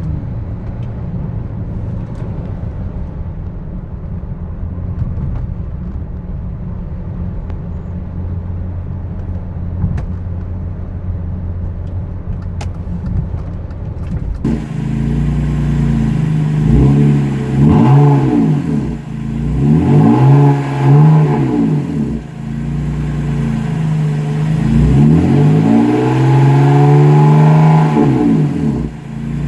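BMW M54 B30 3.0-litre straight-six running through an exhaust with the muffler deleted. First comes a steady low drone. About halfway through the sound changes abruptly and gets louder, and the engine revs up and back down three times.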